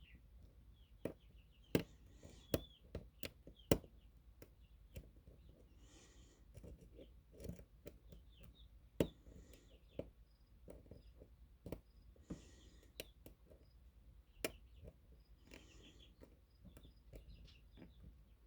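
Lock picking: a metal pick scraping and clicking on the pins of a pin-tumbler challenge lock held under tension, irregular small clicks and brief scrapes.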